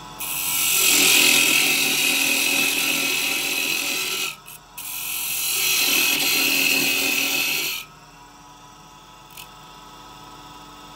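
A chisel cutting a spinning wooden workpiece on a small wood lathe, making two long hissing cuts with a short break between them. Near the end the tool comes off the wood and only the lathe's motor hum is left.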